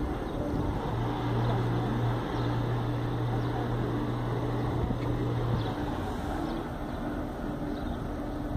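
A vehicle engine running with a steady low hum over outdoor background noise. The hum starts about a second in and stops a little before six seconds.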